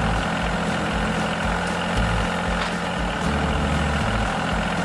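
A motor vehicle engine running steadily at idle, a low even rumble.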